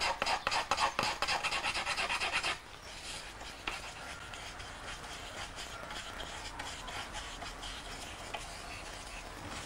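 Quick back-and-forth rasping strokes, about five a second, as a small hand-held abrasive block rubs down the edge of an unlacquered vessel base. About two and a half seconds in this gives way to a quieter, steadier scratchy rubbing of a brush working raw lacquer into the surface to harden the base coat.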